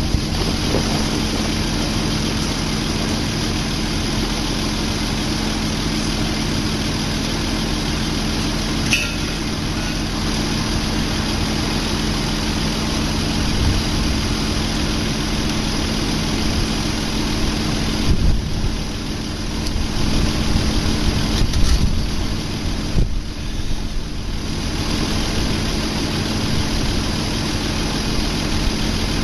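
Vehicle engine idling steadily, with a few knocks and clanks in the middle.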